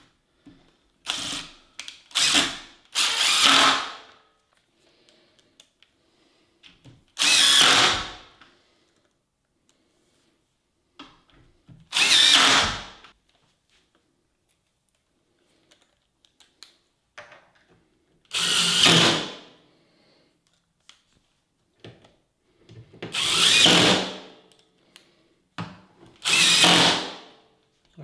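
A yellow DeWalt cordless impact driver drives wood screws through a steel ball bearing door hinge into a wooden door frame. It runs in about eight short bursts of a second or so, with pauses between screws.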